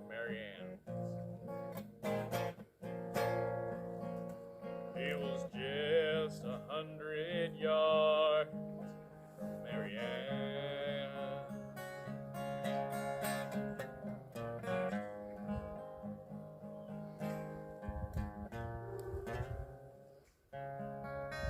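Acoustic guitar strumming in a traditional country song, under a man singing long held notes with vibrato. The voice stops about halfway through and the guitar plays on alone.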